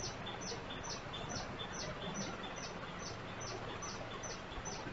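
Steady background hiss with a faint, high-pitched chirp repeating evenly about twice a second, each chirp paired with a softer, lower tick.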